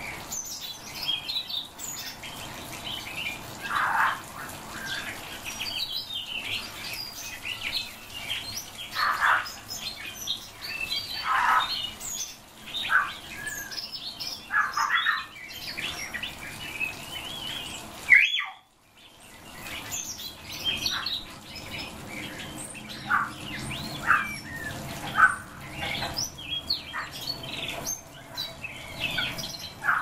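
Caged songbirds chirping and calling, many short notes overlapping, with a brief silence just past the middle.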